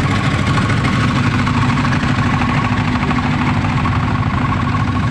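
Trailer-mounted generator set's engine running steadily at constant speed: a continuous low engine pulse with a thin steady high tone over it.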